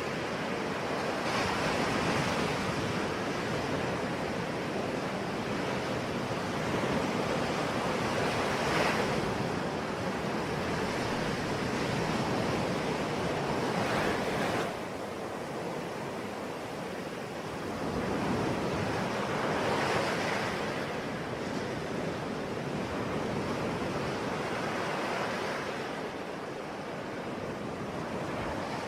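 Ocean waves breaking and washing on a shore, a steady rush of surf that swells every several seconds as each wave comes in.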